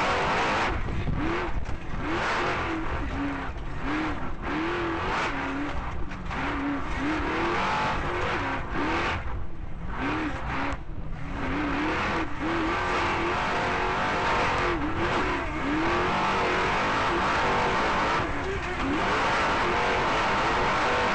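Off-road race car heard from inside the cabin, running hard. The engine note keeps rising and falling as the revs change, over a loud, constant rush of noise.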